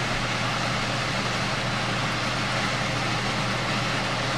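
Steady whir and hiss of a running fan, with a constant low hum underneath.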